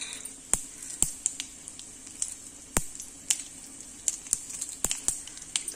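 Dried red chillies and seasoning dal frying in a little hot oil for a tempering: a faint steady sizzle with a dozen or more sharp, irregular pops and spits.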